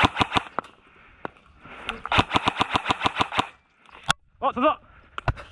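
Kingarms PDW airsoft electric rifle firing: a few quick shots, then about two seconds in a rapid string of about a dozen shots, roughly eight a second.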